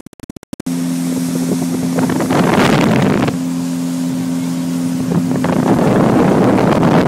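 Motorboat engine running steadily at speed, a low even hum under the rush of water from the wake. Gusts of wind buffet the microphone, drowning the hum for about a second near the middle and again toward the end.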